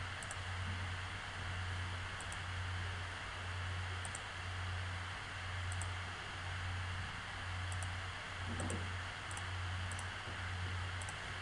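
About ten faint computer-mouse clicks, spaced irregularly, over a steady low hum and hiss.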